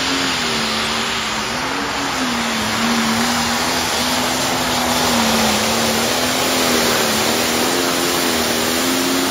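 Light pro stock pulling tractor, an International with a diesel engine, running flat out under full load as it drags a weight sled. The engine note holds high and steady, wavering slightly, over a heavy rushing exhaust noise.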